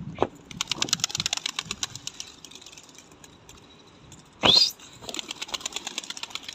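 Pigeons' wings flapping in rapid clatters as birds take off, once about half a second in and again near the end. About four and a half seconds in there is a short, loud, sharp sound rising in pitch.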